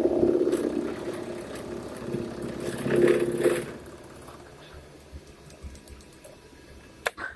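Manual milling machine running with a pitched mechanical whine, loudest in the first second and again about three seconds in, then settling to a quieter hum; a sharp click near the end.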